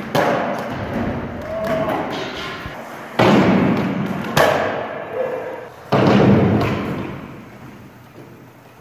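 Skateboard slapping and landing on a gym's wooden floor: four sharp impacts, at the start and about three, four and a half and six seconds in, each ringing out with a long echo through the large hall.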